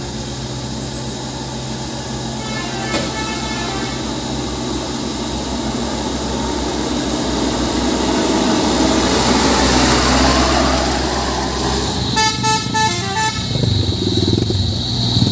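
Truck diesel engines working up a steep grade, the engine noise swelling as a truck draws near. A vehicle horn gives a short toot about three seconds in and a quick series of toots about twelve seconds in.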